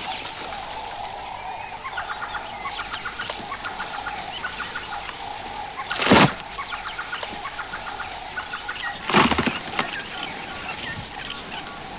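A tree trunk cracking under an African elephant bull's push: two loud, sharp cracks, about 6 and 9 seconds in, as the trunk gives way. Behind them, birds call in rapid, repeated clucking notes.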